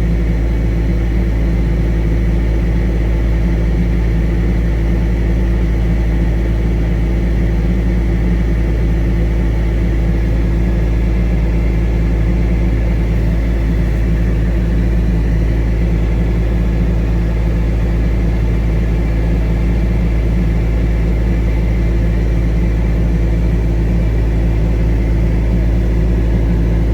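Engine running at a constant speed: a loud, unchanging low rumble with a steady hum.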